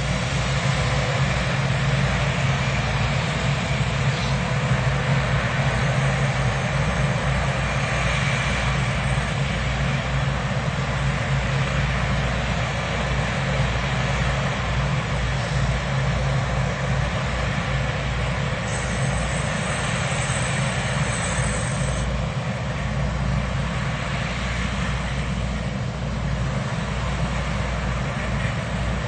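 Samroeng Karnchang rice combine harvester running steadily: a low engine hum under a dense, even rush of machinery noise.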